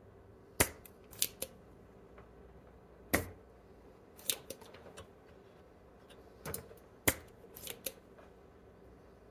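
Sharp clicks and snaps of small hand tools working the leads of a component on a circuit board being desoldered, about nine in uneven groups, over a faint steady hum.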